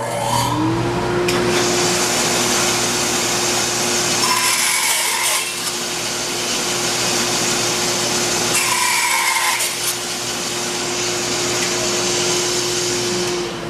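Shopsmith bandsaw with a quarter-inch blade starting up with a rising whine and running steadily, cutting twice into a walnut stick, about four and nine seconds in, each cut adding a short higher-pitched whine. The motor begins to wind down at the very end.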